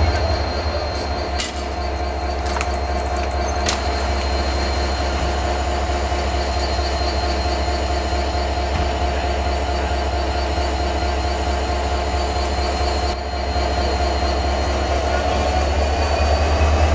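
Diesel locomotive idling: a steady low engine drone with a constant whine above it, and a few sharp clicks in the first few seconds.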